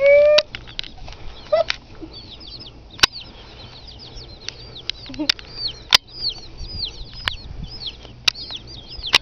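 Chickens calling: one loud squawk right at the start, then a steady run of short, high, downward-sliding cheeps, with a few sharp knocks among them.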